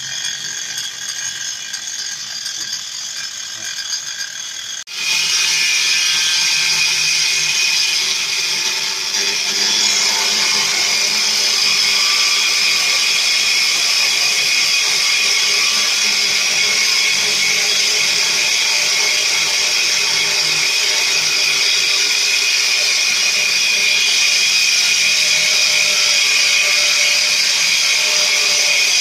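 Bosch GWS 8-100 CE angle grinder fitted with a 7-inch circular saw blade, running steadily with a high whine on its low speed setting. About five seconds in, it jumps abruptly louder and stays loud.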